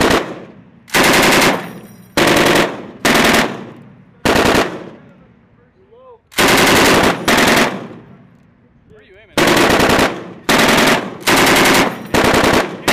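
M240B 7.62 mm belt-fed machine gun firing about a dozen short bursts of a few rounds each, every burst under a second long and trailing off before the next.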